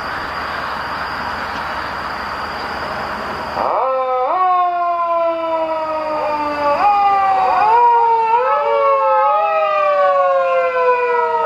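A steady rushing noise, then about four seconds in several Japanese police car sirens start wailing together, each rising quickly and falling slowly, overlapping at different pitches.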